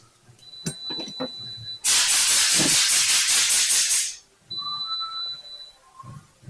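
A loud hiss of pressurised gas, held for about two seconds, with a few light knocks just before it.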